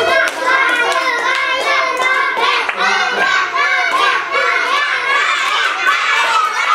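A group of young children cheering and chanting encouragement together, with hand claps throughout.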